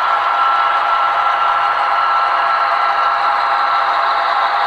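HO scale model diesel locomotives on a coal train running steadily, giving an even engine drone with two steady tones and some rattle and clatter from the train.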